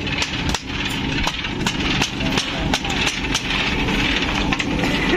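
A motor or engine running steadily, with scattered sharp clicks and knocks of metal over it.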